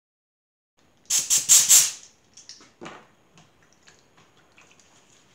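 Four quick blasts of compressed air from a blow gun about a second in, loud and hissing, followed by faint scattered clicks and crackle as air works through the wet plaster of an air-release tile mold sitting in water.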